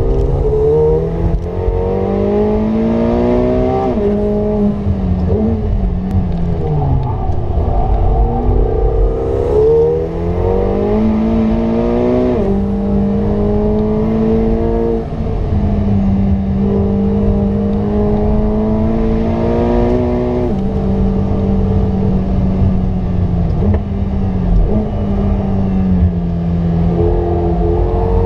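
McLaren 720S's twin-turbo 4.0-litre V8 heard from inside the cabin, pulling hard with its pitch climbing and then dropping sharply at each gear change. Several times the note falls away as the car slows for corners, with tyre and road rumble underneath throughout.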